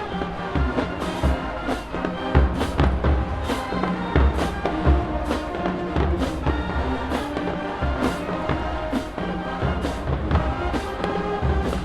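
Marching band playing, brass over heavy bass drums, with a strike on a steady beat about every two-thirds of a second.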